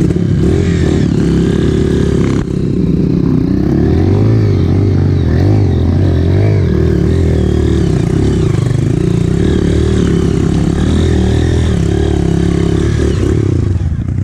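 Honda dirt bike engine revving under load on a steep dirt-trail climb. Its pitch rises and falls continually as the throttle is worked, with a brief dip about two and a half seconds in.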